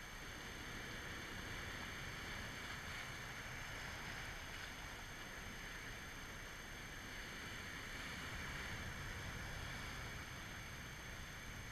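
Steady rush of sea waves breaking and washing among rocks, swelling a little about halfway through and again near the end, with wind rumbling on the microphone.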